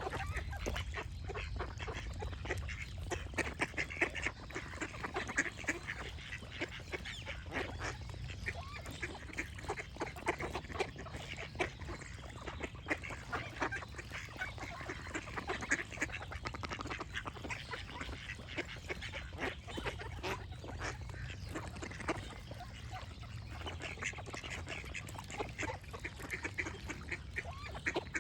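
A flock of ducks quacking continuously, many short overlapping calls, with birds chirping and a steady low rumble underneath.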